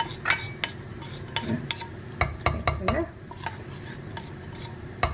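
A metal spoon stirs and clinks against a pressure cooker as oil and ghee heat in it, making a scatter of sharp clicks.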